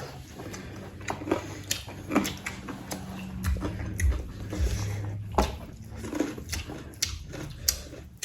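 Close-up eating: wet chewing and biting into spicy chicken, with irregular crunches and small clicks from the meat and bone.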